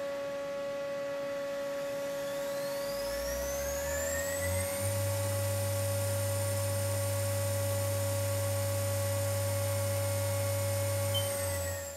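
The 2012 Haas OL-1 CNC lathe's spindle drive whines as it speeds up over about two seconds, starting about three seconds in. It holds a steady high pitch, then begins to slow near the end, over a steady machine hum.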